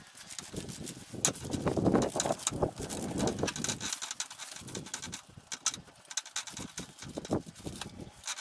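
Small paint roller run back and forth along a wooden strip, giving a soft wet rubbing with irregular clicks and knocks.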